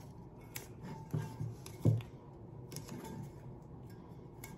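Quiet handling sounds of blue painter's tape being pressed and smoothed around a stainless steel tumbler: faint crinkles and rubs of the tape, with a soft bump a little under two seconds in.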